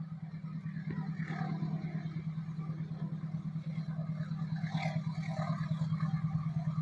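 An engine running steadily with a fast pulsing beat, slowly growing louder, with some light clatter over it.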